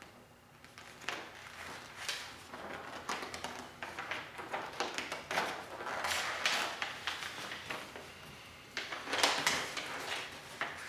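Handling noise: irregular clicks, knocks and rustling of objects being handled, loudest about nine seconds in.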